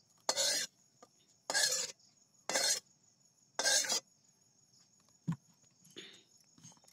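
A long metal spatula scraping the inside of an empty steel kadhai four times, each scrape about half a second long, as the last fried egg is cleared out of the pan. A single soft knock follows a little over a second after the last scrape.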